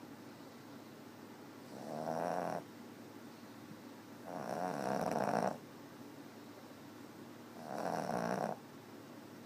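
A sleeping pet snoring: three snores about three seconds apart, each lasting about a second.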